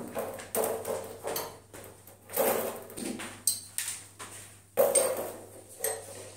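Dismantled wooden wardrobe panels knocking and clattering as they are handled and stood against the wall. The louder knocks come about two and a half seconds in and again near five seconds, with a brief metallic ring between them.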